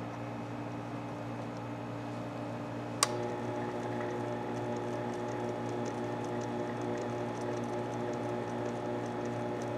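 Mini lathe switched on with a sharp click about three seconds in, then its motor and spindle running with a steady hum while layout fluid is brushed onto the turning aluminium part, with faint rapid ticking over the top.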